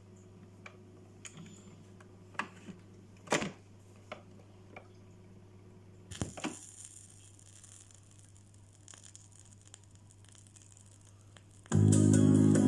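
Automatic record changer of a Philips portable record player cycling to the next single: a series of mechanical clicks and clunks over a low hum, then a knock about six seconds in as the stylus sets down, after which the lead-in groove hisses; music starts near the end.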